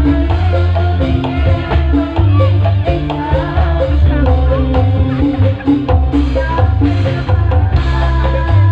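Loud music with a heavy, pulsing bass beat, drums and percussion, and a melody over it.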